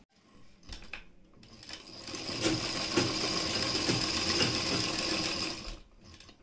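A few light clicks, then a sewing machine runs steadily for about four seconds, sewing a straight seam through cloth, and stops abruptly.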